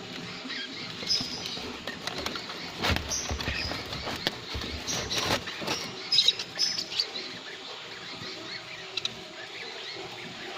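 Young lovebird giving short, high, squeaky chirps at irregular intervals, with a couple of sharp knocks about three and five seconds in.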